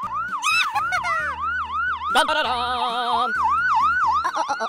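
Electronic ambulance-style siren wailing in a fast, even up-and-down sweep, about three cycles a second. About two seconds in there is a sharp click, then a held chime-like tone for about a second.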